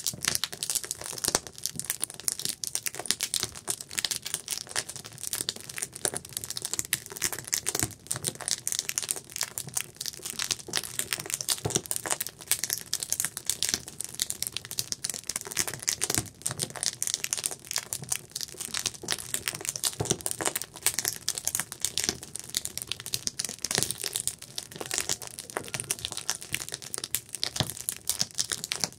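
Wood campfire burning with dense, continuous crackling and popping, many sharp snaps a second.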